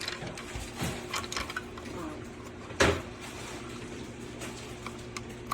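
Light clicks and knocks of small hard parts being handled, with one louder knock about three seconds in, over a steady low hum.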